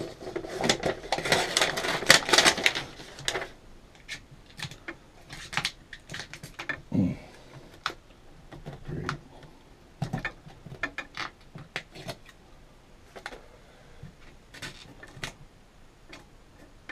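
A float rubbing and scraping over a mosaic tile sheet for the first few seconds, then scattered light clicks and taps as small mosaic tiles are pressed and fitted into place by hand.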